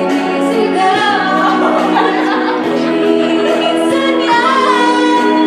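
A woman singing karaoke into a handheld microphone over a backing track, her voice bending up and down above steadily held chords.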